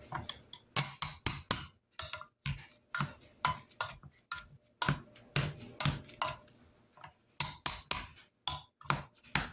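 A hand potato masher mashing cooked, drained potatoes in a pot, clacking against the pot in quick, uneven strokes, about two or three a second, with a short pause about seven seconds in.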